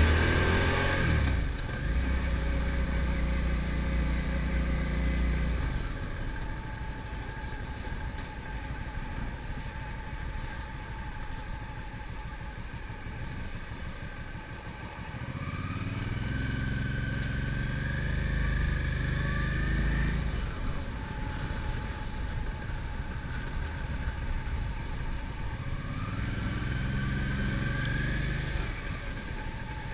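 Motorcycle engine and gearbox running while riding. The revs build twice, about halfway through and again near the end, with a whine that climbs in pitch each time. The bike has a worrying gearbox noise and sticky shifting that points to a failing gear-pedal return spring.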